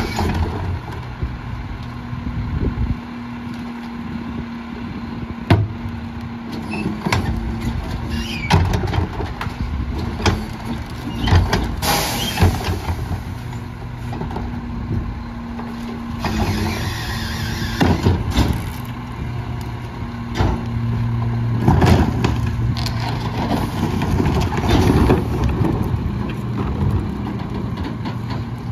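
Mack LEU rear-loader garbage truck idling while trash cans are emptied and knocked against the McNeilus hopper, with many sharp clanks and bangs. About twelve seconds in there is a short burst of hissing air. Later the engine speeds up as the hydraulic packer blade cycles to compact the load.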